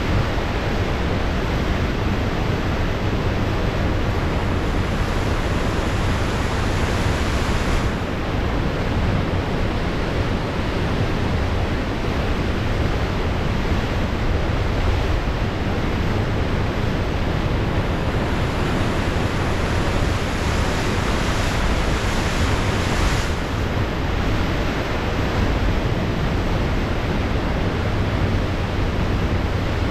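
Pacific Ocean surf washing steadily, with wind on the microphone adding a low rumble. The hiss of the wash grows brighter for several seconds near the start and again about two-thirds of the way through.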